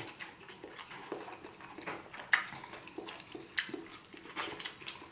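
Close-up mouth sounds of someone chewing a mouthful of paella rice: irregular wet clicks and smacks. A spoon scrapes and taps on a plate as more rice is scooped.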